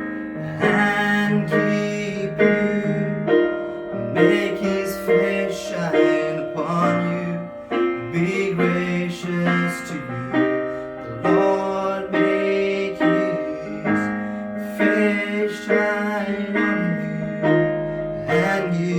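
Piano-style keyboard playing a slow worship song accompaniment in sustained chords, with new notes struck every second or so.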